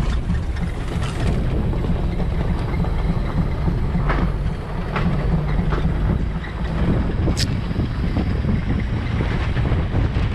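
Off-road 4x4's engine running as it drives over a rough dirt track, a steady low rumble with wind buffeting the microphone and a few knocks and clicks from the vehicle jolting.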